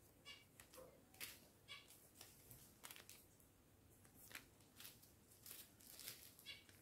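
Small clear plastic zip bags of round diamond-painting drills being handled: faint, short crinkles and rustles of the plastic, several times over.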